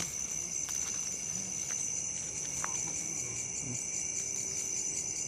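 Steady, high-pitched chorus of night insects such as crickets, with a few faint clicks in the first three seconds.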